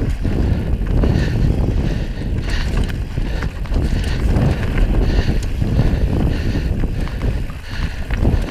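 Mountain bike riding down a rocky trail: tyres crunching over loose rock and the bike rattling and knocking over bumps, under a steady rumble of wind on the action camera's microphone.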